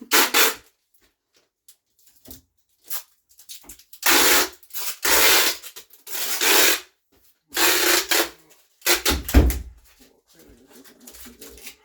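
Wide tape being pulled off a roll in a series of short, harsh rasping tears, about six of them with pauses between.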